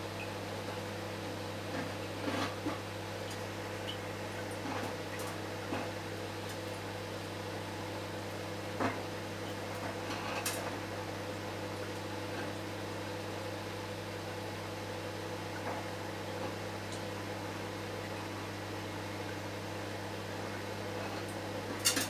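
Microwave oven running at 700 W while heating 400-grit silicon carbide, a steady hum with a few faint ticks.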